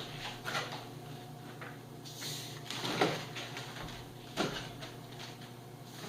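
Shrink-wrapped beer packs being set down on a stack, making three dull knocks spread through the moment, with handling noise between them.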